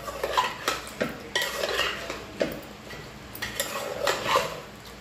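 A ladle stirring a thick curry in a metal pressure cooker, scraping and clinking against the pot in irregular strokes.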